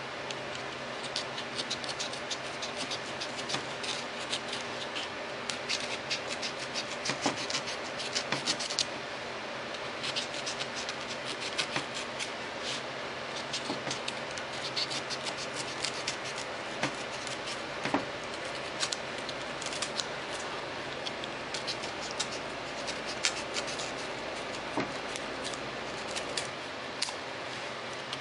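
Hobby knife blade cutting through foam board: a continuous run of small, irregular scratching clicks as the blade is drawn through the board's paper face and foam core.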